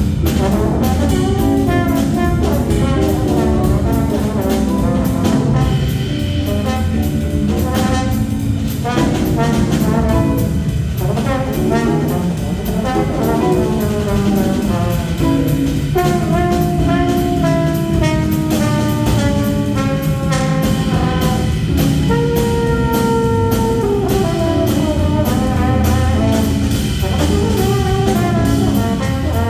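A small jazz combo playing: melodic horn lines over bass and drums with a steady beat.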